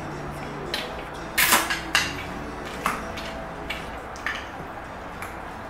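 Metal forks clinking and scraping against plates and a bowl during a meal, as a string of short, sharp clinks. The loudest comes about a second and a half in.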